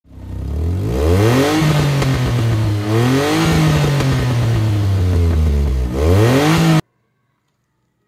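Car engine revving and accelerating, its pitch climbing at first, then holding and easing down, and climbing again before it cuts off abruptly near the end.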